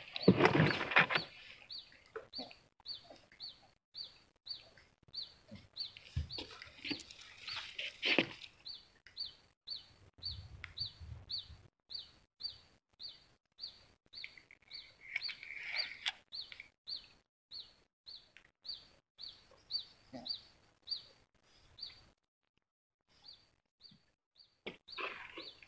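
A bird calling one short, high chirp over and over, about twice a second. The chirping pauses briefly near the end and then starts again. A few low knocks are heard, the loudest about eight seconds in.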